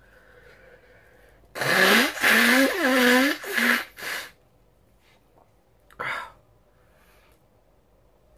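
A person sneezing hard with full voice, a loud explosive burst lasting about two and a half seconds in several surges, the pitch of the voice sliding up and down. About two seconds later comes a short, sharp breath.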